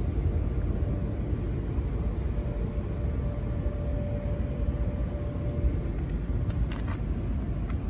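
Steady low rumble of outdoor background noise with a faint steady hum, and a couple of light clicks near the end.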